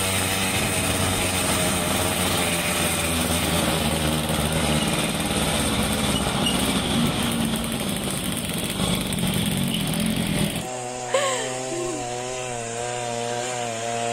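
Small motorcycle engines running over paved and cobbled lanes, heard from a moving bike with road rumble and wind. About ten seconds in, the sound cuts abruptly to a single motorcycle labouring up a cobbled track, its engine note wavering up and down.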